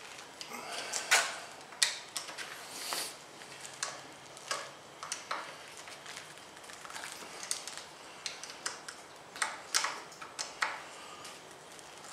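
Irregular small metallic clicks, taps and short scrapes as hands handle an exhaust silencer's metal end cap and its screws while a power-tip insert is fitted.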